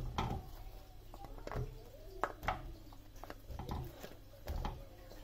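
Light knocks and clicks of raw eggplant slices being picked up and shifted on a ceramic plate, about half a dozen separate taps over a few seconds, over a faint low hum.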